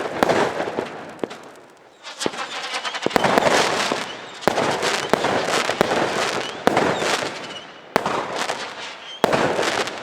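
Weco Black Ice fireworks battery firing: a run of about six sharp bangs a second or so apart, each followed by dense crackling that dies away, the last volley fading out near the end.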